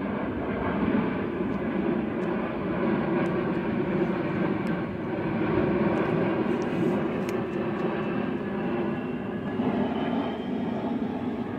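Jet airliner flying overhead, its engines giving a steady, continuous noise.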